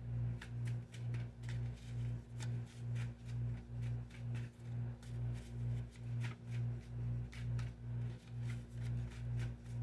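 Low, steady hum that throbs evenly about twice a second, with faint scattered ticks over it.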